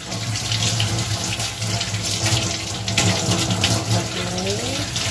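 Tap water running into a kitchen sink, splashing over basil leaves being rinsed under it, with a steady low hum beneath and a note rising briefly near the end.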